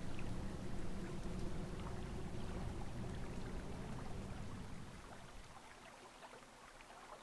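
Faint woodland ambience: the steady rush of a distant stream over a low rumble, fading away about five seconds in.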